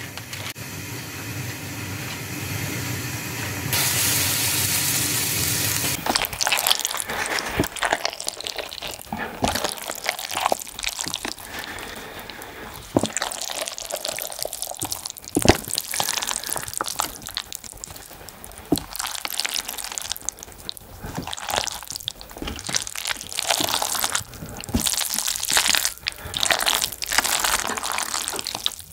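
Water running and pouring while noodles are cooked. The flow gets louder about four seconds in and stops about two seconds later, and irregular clinks and wet splashes follow.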